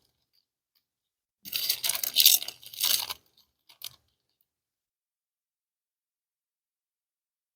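Close-up crunching as a person chews a crunchy snack, starting about a second and a half in and lasting about two seconds.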